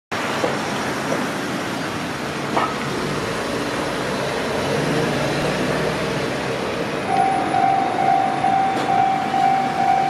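Cars driving over a Japanese railway level crossing, then about seven seconds in the crossing's electronic warning bell starts: a steady high ding repeating a little over twice a second, the signal that a train is approaching.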